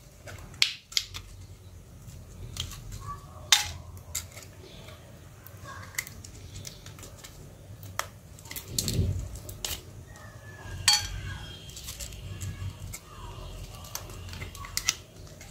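Small plastic and metal parts of a disassembled Micromax Q301 smartphone clicking and tapping as they are handled and pried at by hand, in irregular sharp clicks, with a dull thump about nine seconds in.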